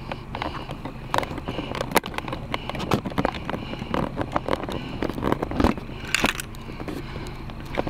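Footsteps on pavement with irregular clicks and handling knocks over a steady low hum.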